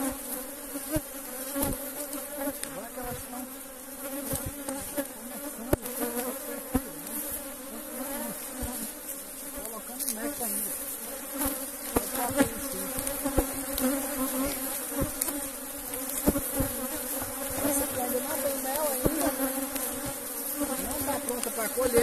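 Honeybees buzzing in a steady, dense hum around an open hive, with scattered short knocks.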